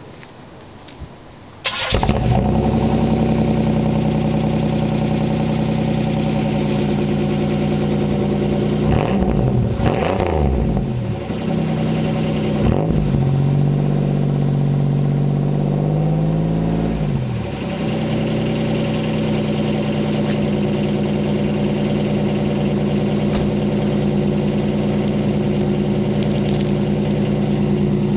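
1995 Buick Regal Custom's 3800 V6, its muffler replaced by a straight four-inch pipe, starting up about two seconds in and then idling. It is revved a few times in the middle, the pitch rising and falling, before settling back to a steady idle.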